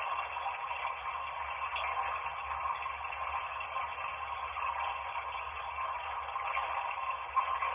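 Running bath water played back from a video through a small speaker and recorded on a Nokia phone: a steady, even hiss.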